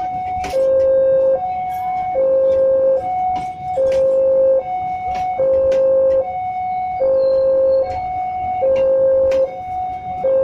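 Railway level-crossing warning alarm sounding its electronic two-tone signal. A higher note and a lower note alternate steadily, about one and a half seconds per pair, with faint ticks and rumble underneath.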